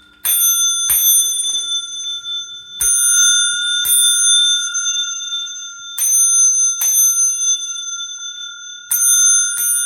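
Crane Suzu bicycle bells, one brass and one copper, rung by their spring strikers twice in quick succession, four pairs of strikes in all. Each strike leaves a long, clear ring with a bright overtone.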